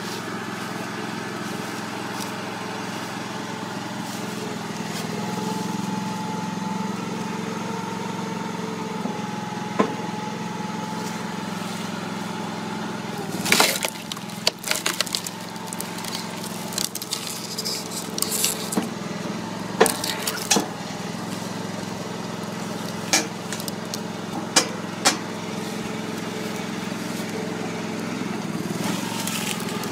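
Gasoline chainsaw running steadily as it cuts through a rack of stacked firewood logs. Cut wooden blocks drop and knock onto the pile, several sharp clacks from about halfway through.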